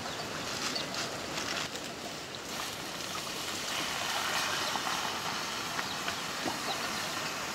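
Water poured from a plastic jug into a pan of nettle leaves over a wood fire, a steady rushing and sizzling that swells partway through, with small crackles from the burning wood.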